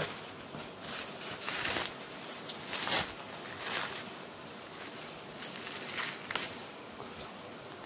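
Bubble wrap and plastic packaging crinkling and rustling as hands unwrap a small part, in uneven bursts, the loudest about three seconds in.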